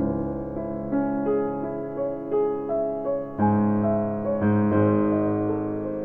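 Piano music: notes and chords struck every half second or so, each ringing and fading.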